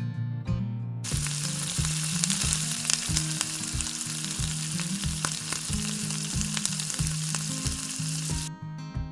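Food frying in hot oil, a dense sizzle with many small crackles. It starts suddenly about a second in and cuts off sharply near the end, with guitar background music underneath.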